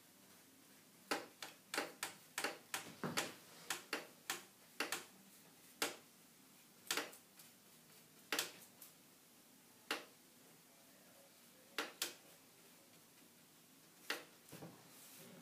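A run of sharp wooden taps and clicks, about two or three a second at first and then a few single ones spread out, as a brush works rabbit skin glue onto a wooden panel.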